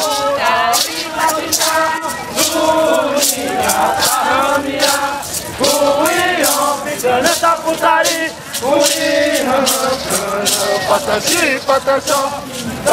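A group of Indigenous dancers chanting in unison, men's voices prominent, with a handheld gourd rattle (maraca) shaken in a steady beat.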